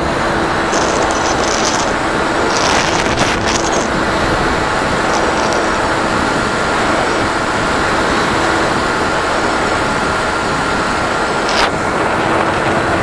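Wind rushing over the onboard camera of a radio-controlled FPV plane in flight, with the steady tone of its motor and propeller underneath. A few brief crackles of wind buffeting come about three seconds in and again near the end.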